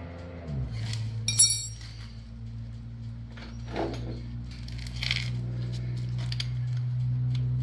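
Metal hardware and hand tools clinking during a motorcycle floorboard install, with one bright ringing metallic clink about a second and a half in and a few lighter knocks and scrapes after, over a steady low hum.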